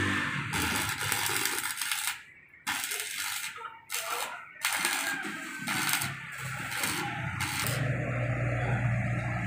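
Electric arc welding: steel scrollwork being tack-welded to a gate frame, the arc crackling in several short runs broken by brief pauses, with a low steady hum from the welding machine toward the end.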